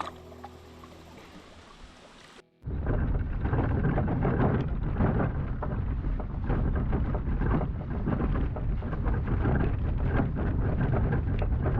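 Background music fading out, then about two and a half seconds in a sudden cut to steady, loud rain and wind rumbling on the microphone.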